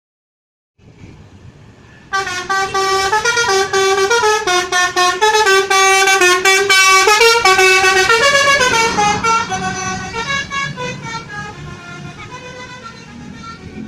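Indonesian bus 'basuri' telolet horn, several air-horn trumpets sounding together and stepping through a quick melody of notes. It starts loud about two seconds in and fades over the last few seconds.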